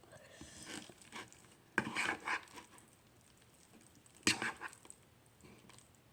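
An eating utensil clicking and scraping against a dish, in three short clusters a couple of seconds apart.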